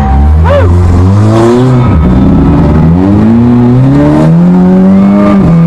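Demolition derby car engines revving up and down close by, one engine's pitch climbing steadily for a few seconds and then dropping sharply near the end.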